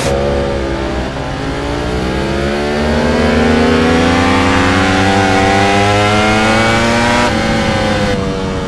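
Ducati Panigale V4 R's V4 engine pulling hard, its note climbing steadily for about six seconds, then dropping back near the end.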